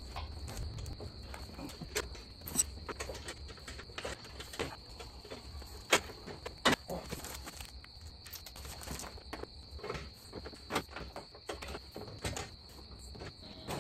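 Insects chirring steadily on one high pitch, with scattered sharp clicks and knocks from hand work on a pickup truck's rear bumper and hitch.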